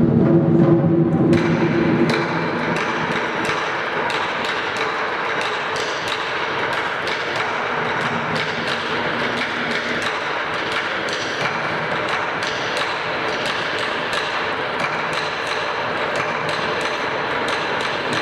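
Lion dance percussion: steady, rapid drum strikes and clashing cymbals. They take over about a second and a half in from music with low, booming tones.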